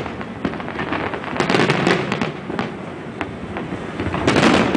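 A fireworks display: many aerial shells bursting in quick succession, overlapping with one another, with a loud run of bursts near the end.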